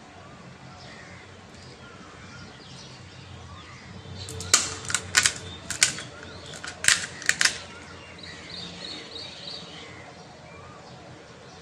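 Crisp fried puri (fuchka) shells being cracked open with the fingers: a run of sharp, crunchy cracks in two quick clusters in the middle, with a bird chirping faintly in the background.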